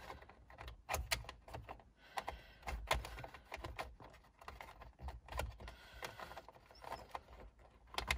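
Irregular small plastic clicks and taps as a trim cap is handled and pressed into place at the side of a steering wheel.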